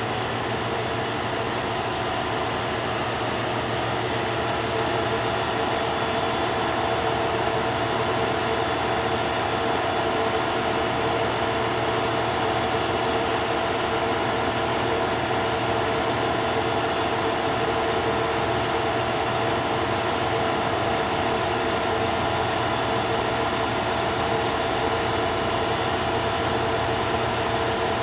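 FS D.145 diesel shunting locomotive's engine running steadily, a hum made of several steady tones, growing slightly louder a few seconds in.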